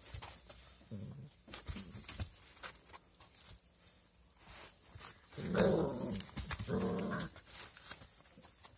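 Young puppies play-fighting, growling in short bursts, the two loudest growls about five and a half and seven seconds in, with scuffling clicks between them.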